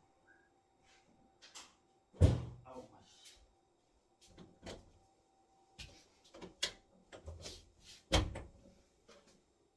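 Bangs and knocks from neighbouring flats, carried through a building without soundproofing: two heavy thuds, about two seconds in and again about eight seconds in, with lighter knocks and clicks between them.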